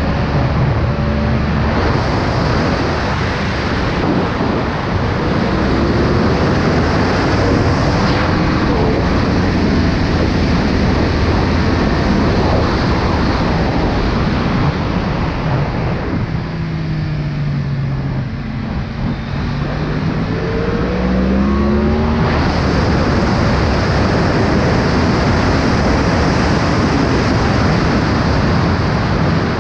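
Yamaha R1 motorcycle's inline-four engine pulling hard, heard through heavy wind buffeting on an unshielded action-camera microphone. Its pitch rises in the first seconds, then about halfway through the revs fall away and climb again.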